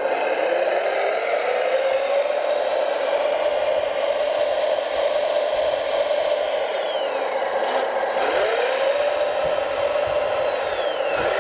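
Whine of radio-controlled construction machine models working: a steady motor whine that dips in pitch and climbs back a few times as the load changes, with fainter higher whines gliding down now and then.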